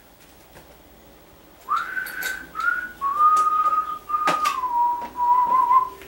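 A man whistling a few long held notes that step down in pitch, starting about two seconds in. A sharp click sounds midway through.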